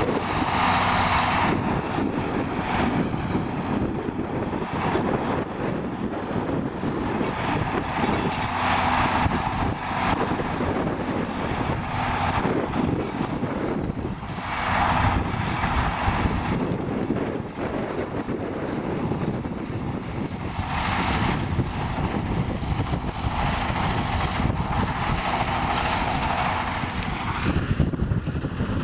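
John Deere 4430 tractor's six-cylinder diesel running steadily while working a New Holland 851 round baler. A higher rushing noise swells and fades several times over it.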